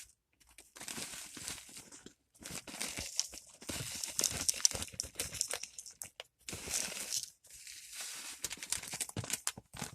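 Plastic bag of damp potting mix crinkling and rustling in short irregular bursts, with brief pauses, as more soil is tipped out of it.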